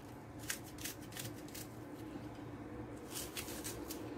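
Kitchen knife cutting through an onion held in the hand: a few faint, crisp slicing clicks, several more close together near the end, over a faint steady hum.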